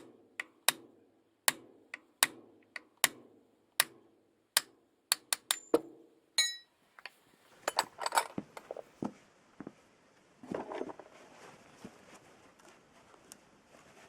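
Hammer tapping on metal, a sharp strike about every three-quarters of a second for the first six seconds, then stopping. A brief ring follows, then a few seconds of metal parts clinking and rattling as they are handled.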